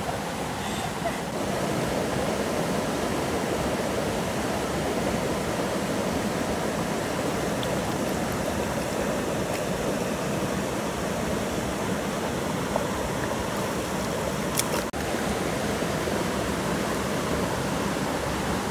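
Steady rush of flowing river water, with one brief dropout about fifteen seconds in.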